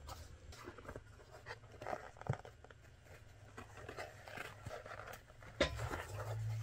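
Faint rustling and scattered small clicks of a needle and thread being pulled through leather in hand-stitching, with a sharper click about two seconds in and another about five and a half seconds in.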